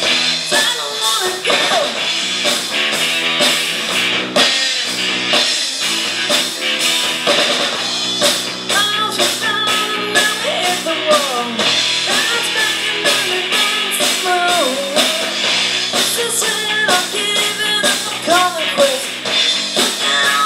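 Live rock band playing: electric guitars, bass and drum kit with a steady beat, and a woman singing lead.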